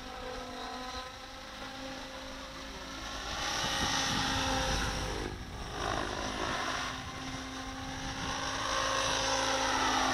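Radio-controlled model helicopter flying aerobatics: a steady whine from motor and rotor blades. It grows louder about three seconds in and glides up and down in pitch as the helicopter sweeps past.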